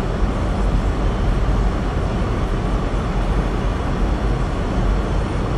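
Steady road noise inside a moving car's cabin: a dense low rumble with a hiss above it and no breaks.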